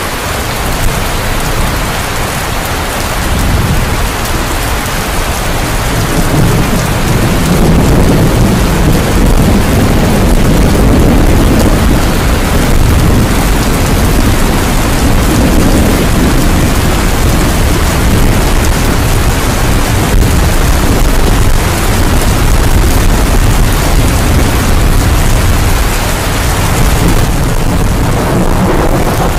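Heavy rain pouring down on the street and rooftops: a steady, loud hiss of rain that grows louder a few seconds in.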